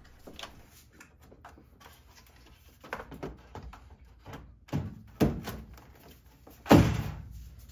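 Clicks and knocks of a heat-pump washer dryer's sheet-metal inverter housing being fitted and snapped into its three locks: a few separate sharp clicks, the loudest near the end.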